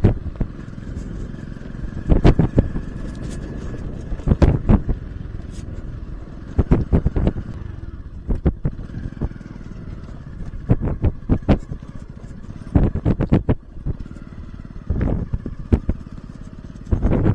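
Motorcycle running at low speed over a rough dirt track, the engine steady underneath and repeated sharp knocks and rattles as the bike jolts over bumps.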